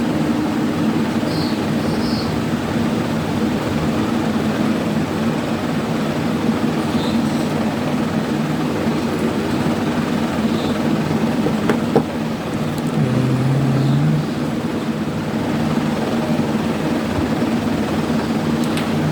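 Steady mechanical drone with a low hum, like a running motor or engine, with a single click about twelve seconds in.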